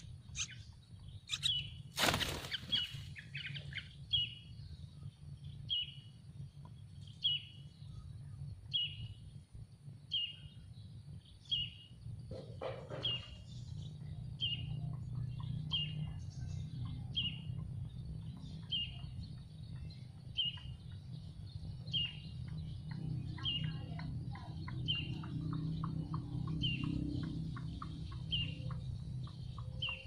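Yellow-vented bulbul nestlings begging, a short high chirp repeated about once a second. A loud brief rustle comes about two seconds in.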